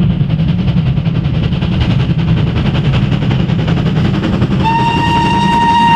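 Steam locomotive working a train, with a loud low rumble and a fast, even beat. About four and a half seconds in, its steam whistle starts one long, steady note that is still sounding at the end.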